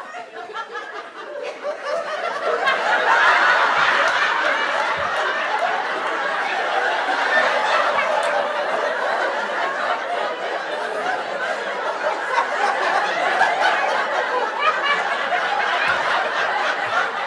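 Theatre audience and actors laughing together: a long, continuous laugh from many people that builds over the first few seconds and stays up.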